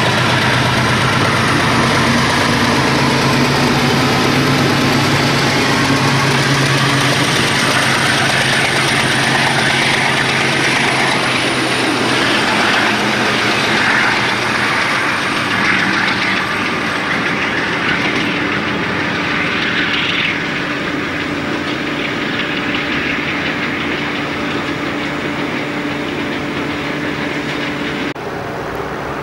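DX class diesel-electric locomotive running steadily as it hauls passenger coaches past, its engine note strong at first and then easing into rail and coach noise as the train moves off. The sound changes suddenly to a quieter steady hum near the end.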